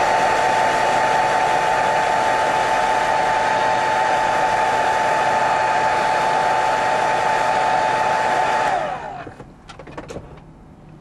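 Hair dryer blowing steadily with a motor whine, switched off about nine seconds in, its pitch falling as it spins down. A few light clicks follow.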